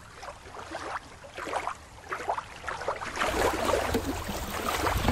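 Shallow water lapping and splashing in small irregular strokes, with a low rumble joining about three seconds in, when the sound gets louder.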